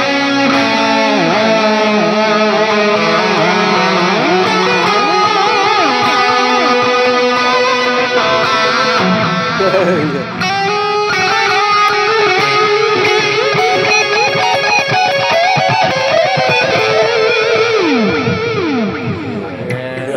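Electric guitar with a distorted lead tone through a Valeton multi-effects preset, its delay turned up to more feedback repeats and a longer triplet time. A continuous run of sustained notes, bends and slides, with several falling slides near the end.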